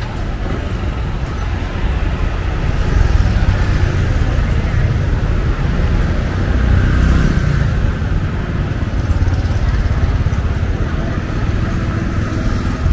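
Street traffic: cars and motorcycles running and passing in a steady stream, swelling slightly as vehicles pass about three and seven seconds in.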